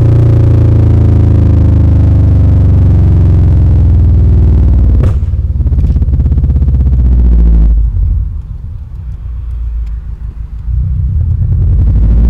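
Subaru Impreza 2.5RS flat-four engine running through an aftermarket Tsudo header, high-flow cat and exhaust. It is loud and deep for the first several seconds, quieter for about four seconds past the middle, then loud again near the end.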